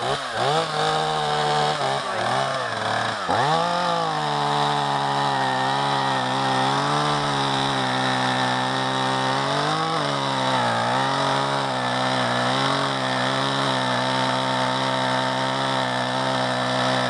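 Two-stroke chainsaw engine revving up and down a few times, then running steadily at high speed with a brief dip about ten seconds in.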